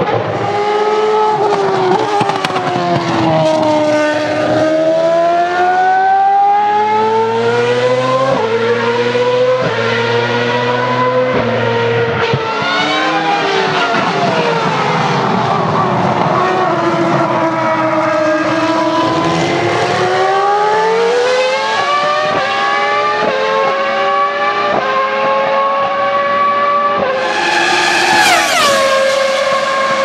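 Ferrari F2002 Formula One cars' V10 engines at high revs, several cars overlapping. Their pitch climbs under acceleration and drops in steps at upshifts and on lifting off. Near the end one car screams past close by, its pitch falling sharply as it goes by.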